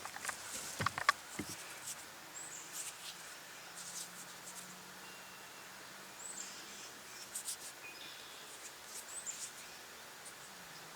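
Quiet outdoor background with a bird's short high chirp repeating every few seconds. A few scratchy rubbing sounds in the first second or so, then a faint low hum under it.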